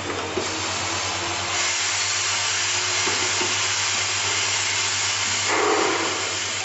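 Automatic screw-fitting and assembly machine running, with a steady low hum. About a second and a half in, a loud rushing noise joins and holds, swelling briefly near the end before dropping back.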